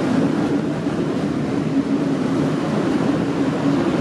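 V/Line VLocity diesel multiple unit running, a steady engine drone.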